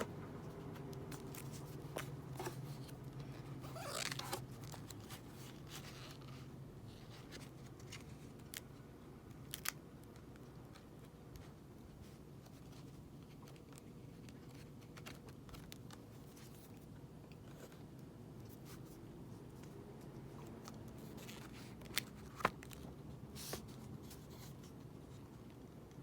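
Album packaging being handled and opened: sparse clicks, taps and short paper-and-plastic rustles, with a longer rustle about four seconds in and a few sharp taps near the end.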